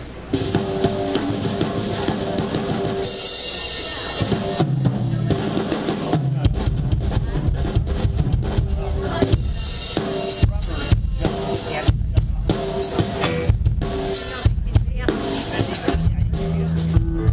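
Live rock band playing through amplifiers, with the drum kit loudest over electric guitars. The bass drum comes in with heavy, regular beats about six seconds in.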